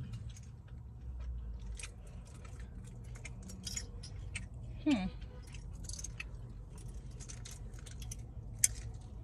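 Scattered small clicks and rattles of hands working at a stubborn sauce bottle's cap, over a low steady hum. A short falling vocal sound comes about halfway through, and a sharper click near the end.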